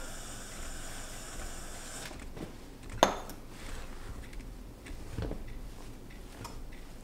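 Metal utensil stirring thick biscuit dough in a glass bowl, with one sharp clink about three seconds in and a softer knock about two seconds later.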